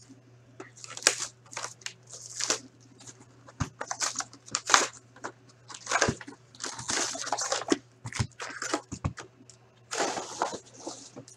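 Plastic shrink-wrap crinkling and tearing as it is peeled off a box of hockey cards, then the cardboard box opened and its foil card packs handled, in short irregular rustling bursts.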